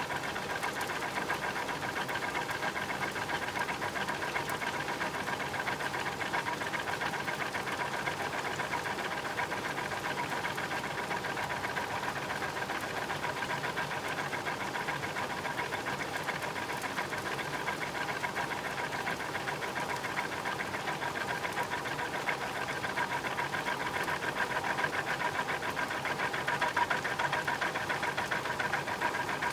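Washing machine belt and wheel drive mechanism running steadily, heard close up: a fast, even mechanical chatter with a steady whine.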